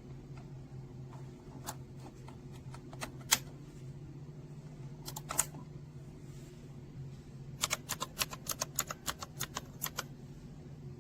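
Keys of a mechanical keyboard being pressed: a few scattered clacks, then a quick run of about fifteen keystrokes, some six a second, over a steady low hum.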